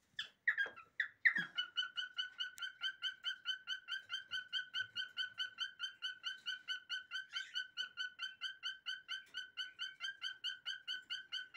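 Pet cockatiel calling: a few varied chirps, then one short whistled note repeated steadily about four times a second.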